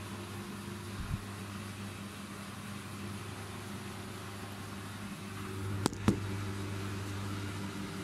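Arçelik front-loading washing machine running, its drum turning with a steady low motor hum that grows a little louder about five seconds in. Two sharp clicks come close together about six seconds in.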